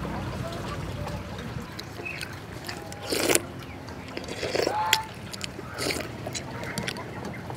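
Spoon scraping and clinking against a glass dessert cup of lotus seed dessert, a few short strokes about a second apart, with eating sounds.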